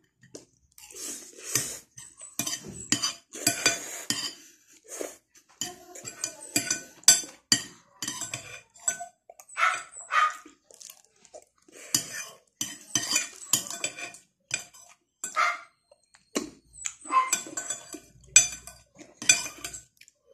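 Fork and spoon clinking and scraping against a plate of noodles, in many short, irregular strokes.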